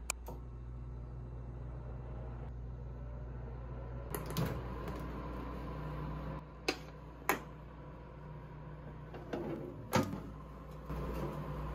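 Steady low hum of a small room with a few sharp clicks and knocks of things being handled, the loudest about ten seconds in.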